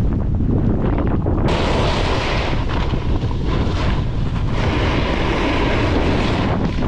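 Wind buffeting the microphone of a camera moving fast downhill, a steady low rumble, with the hiss of snow under a board or skis sliding and carving. About a second and a half in the sound changes abruptly to a brighter, hissier scrape over packed snow.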